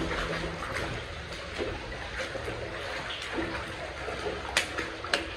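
Steady trickle of running water, with two sharp knocks near the end.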